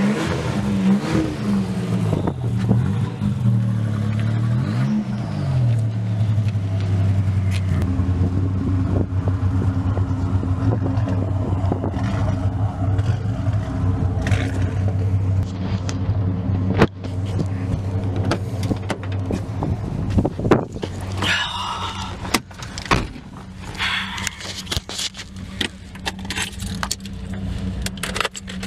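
A car engine idling steadily. Over the second half come many clicks and knocks and jangling keys.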